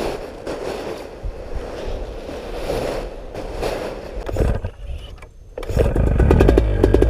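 Rustling and scraping noise, then about six seconds in a paramotor engine starts cold and keeps running with a fast, even pulse, louder than what came before.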